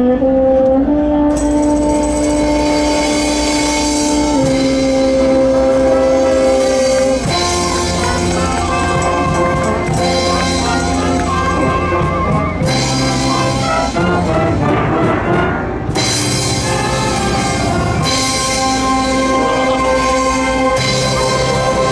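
School wind band playing: brass and woodwinds with a drum kit. Slow held chords for the first several seconds give way to a livelier moving tune over drums.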